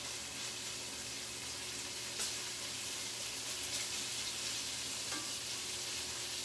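Bacon frying in a large skillet: a steady sizzling hiss with scattered pops and crackles, the sharpest about two seconds in.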